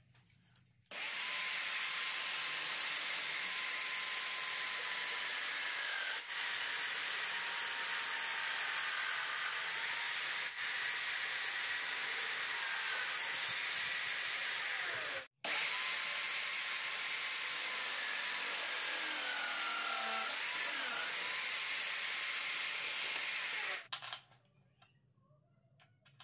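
Drill press running and boring into wood: a steady, dense cutting noise with a faint motor whine. It breaks off for a moment midway, then carries on and stops abruptly near the end.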